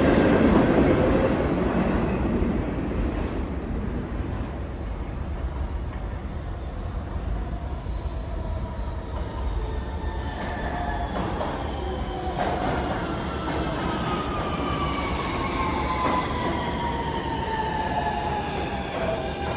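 New York City subway train running with a steady rumble. From about halfway through, a whine of several tones falls slowly in pitch, as of the motors winding down while the train slows.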